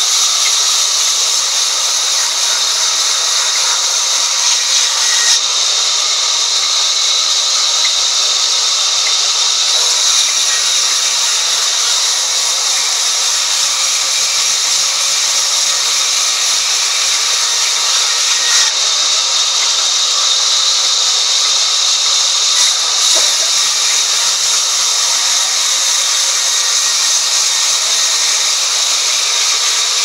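Band sawmill blade ripping lengthwise through a mahogany log: a loud, steady, high hiss of the cut that runs without a break.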